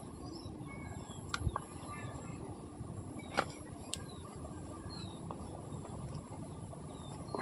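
Outdoor ambience: a steady low background rumble with scattered faint chirps, and a few sharp clicks around the first and fourth seconds.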